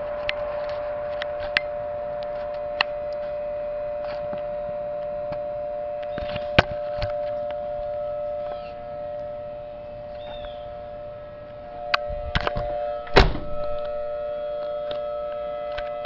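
A recorded Thunderbolt civil defense siren played through a laptop speaker, holding a steady two-tone sound that dips in loudness partway through. Several sharp thumps break in, the loudest about 13 seconds in.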